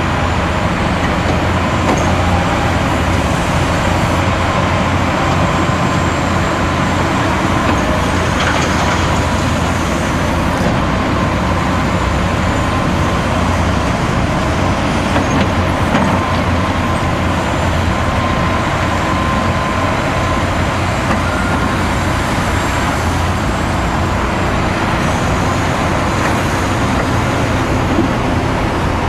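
Heavy diesel engines of a loaded Mercedes-Benz Actros tipper truck and a Hitachi Zaxis 250LCN excavator running steadily, over a constant hum of motorway traffic.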